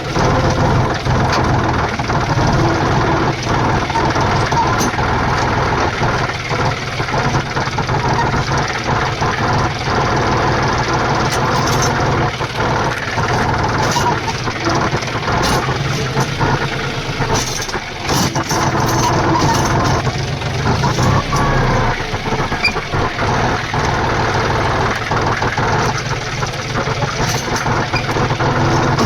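Tractor diesel engine running steadily, with scattered short knocks over it.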